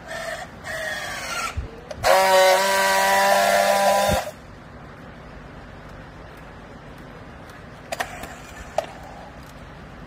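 Battery-powered handheld strapping tool working on a plastic strap: two short whirring bursts as its motor tensions the strap, then a loud steady buzz of about two seconds as it friction-welds the strap ends, cutting off sharply. Two sharp clicks near the end.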